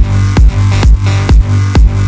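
Electronic dance music with a steady kick drum, just over two beats a second, over a sustained bass.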